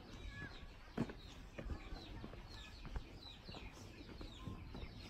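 Faint chirping of birds, many short falling notes, with a few sharp knocks, the loudest about a second in.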